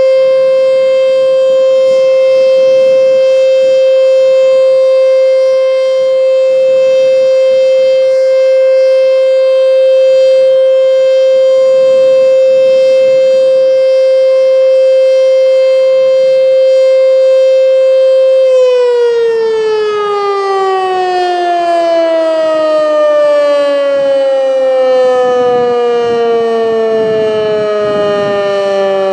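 ASC T-121 mechanical warning siren sounding a steady Alert tone, then winding down: about eighteen seconds in, the pitch begins to fall smoothly and keeps falling as the rotor slows.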